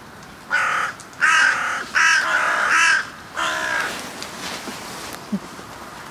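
Carrion crows cawing: about four loud caws in the first four seconds, the third the longest.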